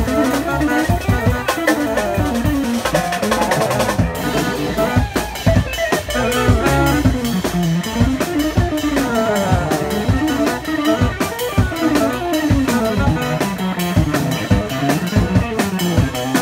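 A live jazz-rock trio of alto saxophone, electric guitar and drum kit plays an instrumental with a driving drum beat and notes that glide up and down in pitch. The high cymbal wash thins out about four seconds in.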